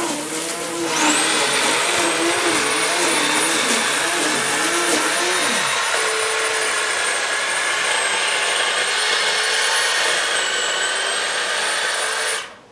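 Corded electric garden power tool's motor switching on about a second in and running steadily with a high whine over a rushing hum, then cutting off suddenly near the end.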